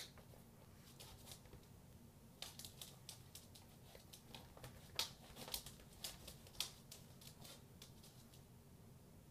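Small dog playing with toys on a hardwood floor: a run of light clicks and knocks starts about two and a half seconds in and lasts some five seconds, with a couple of sharper knocks in the middle, over a faint low hum.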